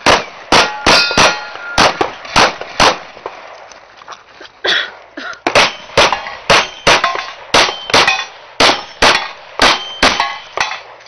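A Limited-division semi-automatic pistol fired in rapid strings of about two dozen shots, roughly three a second, with a pause of about two seconds after the first eight; several hits set steel targets ringing with a metallic clang.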